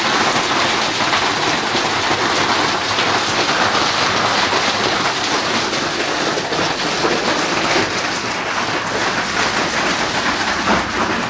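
Large hail and torrential rain pounding on corrugated roof sheets: a dense, steady clatter of countless small impacts.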